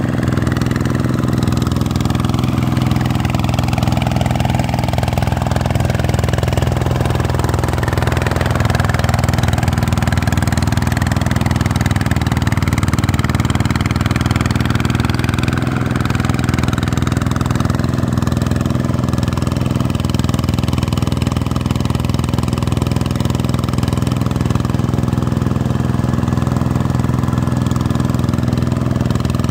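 Vikyno RV125-2 single-cylinder diesel engine of a two-wheel hand tractor running steadily under load, pulling its cage wheels through a flooded paddy field.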